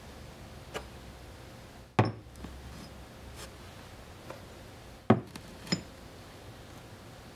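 Machined steel spacers set down one at a time, upright, on a hard plastic case lid: two sharp knocks about three seconds apart, with lighter clinks before and after them.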